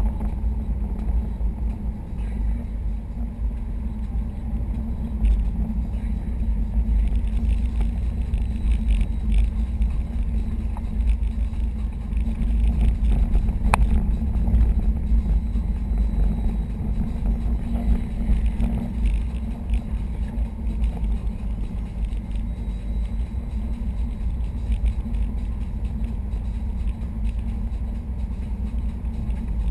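Steady low drone of road and engine noise heard inside the closed cabin of a 2011 Subaru STI, with the air conditioning running. There is one sharp click about halfway through.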